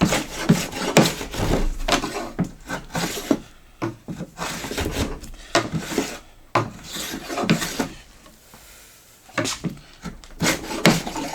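Stanley 220 block plane pushed in repeated strokes along a wooden board, scraping and rubbing, with a short pause about eight seconds in. The freshly sharpened blade is barely cutting.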